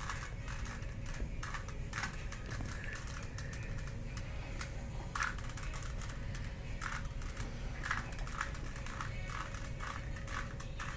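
Plastic Rubik's cube being twisted by hand: an irregular run of small clicks and rattles as its layers turn.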